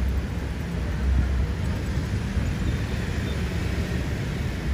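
Steady roar of busy multi-lane city traffic, with engines rumbling low and tyres hissing, and no single vehicle standing out.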